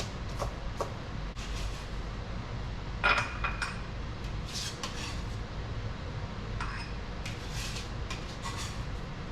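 Kitchen clatter: scattered knocks and clinks of utensils and dishes being handled while vegetables are prepared, with one louder, briefly ringing clatter about three seconds in.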